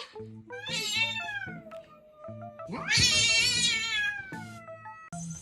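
A cat meowing twice, two long meows that fall in pitch, the second one longer, over background music.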